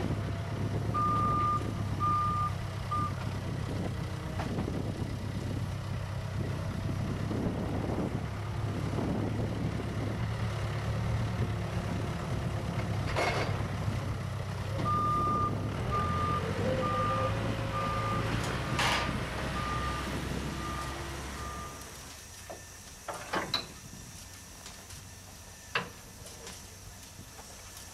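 Backhoe loader's diesel engine running steadily, its reversing alarm beeping: three beeps about a second in, then a longer run of about eight beeps later on. Near the end the engine sound gives way to a quieter stretch with a few sharp metallic clanks.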